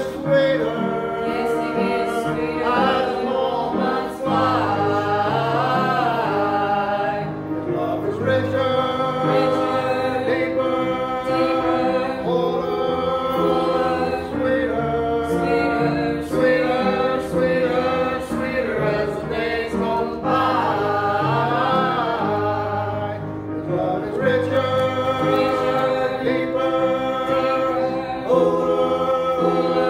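A small gospel vocal group, two men and a woman, singing in harmony with long held notes over steady low accompaniment.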